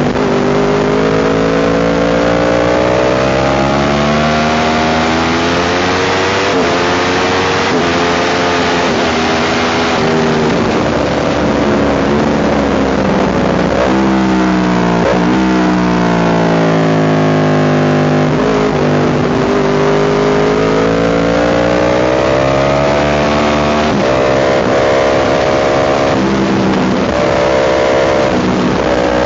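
Sport motorcycle engine at high revs lapping a race track, its pitch climbing again and again and dropping sharply at each upshift, sliding down under braking into corners. A constant rush of wind runs under it.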